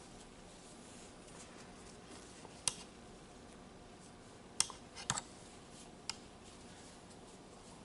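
Quiet crocheting sounds: an aluminum crochet hook working yarn gives a few short sharp clicks, with a small cluster past the middle, over a faint steady hiss.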